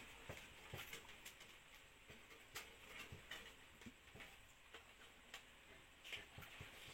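Near silence broken by faint, irregular clicks and taps as PC cables are tucked and handled in a computer case.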